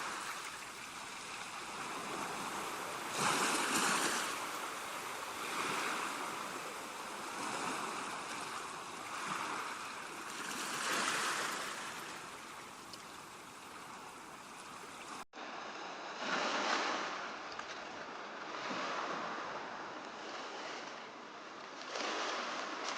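Ocean surf: waves breaking and washing in, the rush swelling and fading every two to three seconds. A momentary dropout comes about two-thirds of the way through.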